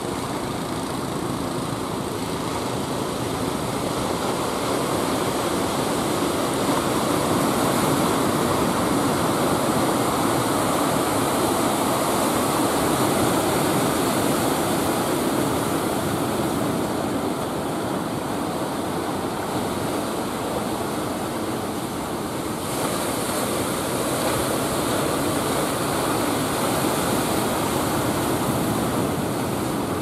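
Ocean surf breaking and washing on the shore, a steady dense rush of waves.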